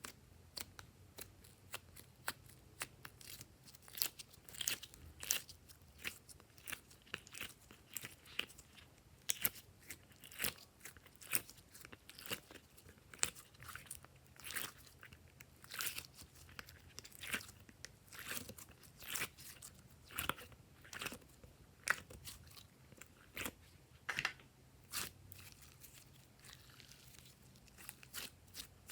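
Glossy slime being mixed and squeezed by hand, with an irregular run of sticky pops and crunchy crackles, a few a second.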